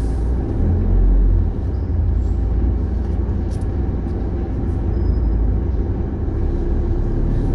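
Steady low rumble inside a moving car's cabin: engine and tyre noise as the car drives slowly.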